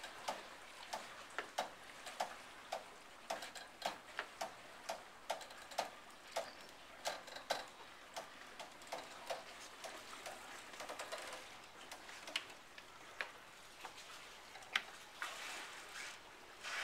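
A series of sharp clicks or taps, irregular but roughly two a second, with a short stretch of soft hiss near the end.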